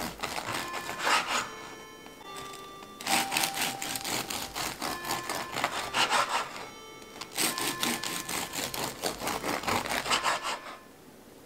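Rapid, repeated scraping strokes in three bursts of about three seconds each, over soft background music. The strokes stop shortly before the end.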